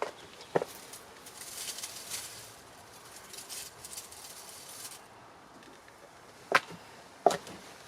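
Hand-harvesting potatoes: a soft rustling of soil and plants for a few seconds, with a single sharp knock early on and two knocks close together near the end.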